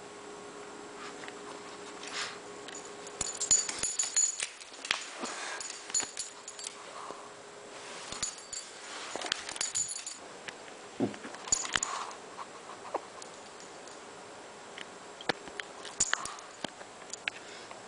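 Shih tzu moving about close to the microphone: scattered clicks and rustles with short bursts of light jingling, loudest about three to four seconds in.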